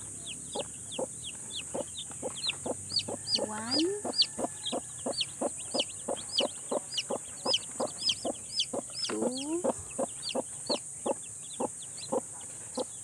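Newly hatched chicks peeping in quick short high chirps, about three a second, mixed with low clucks from the broody hen sitting over them. The hen gives a rising call twice, about four and nine seconds in, as a hand reaches under her.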